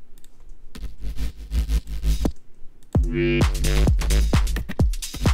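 Bass house beat in progress playing back from the DAW: electronic drums with a low kick and crisp hits, and about three seconds in a thick synth bass note comes in over them.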